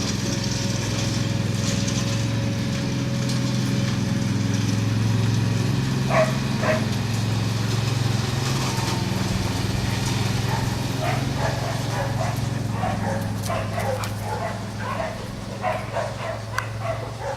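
Lawn mower engine running steadily, with a border collie barking at it: two barks about six seconds in, then repeated short barks through the second half.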